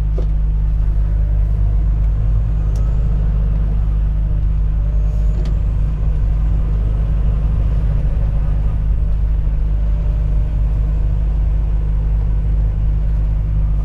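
Volvo FH 460 truck's diesel engine running steadily under way, a constant low drone with road noise.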